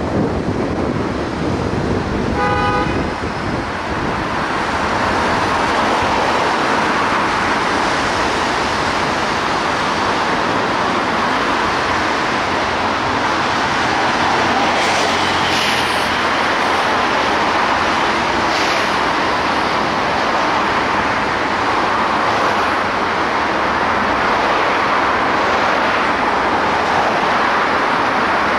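Steady road and traffic noise from a car driving in dense city traffic, with one short car horn toot about two and a half seconds in.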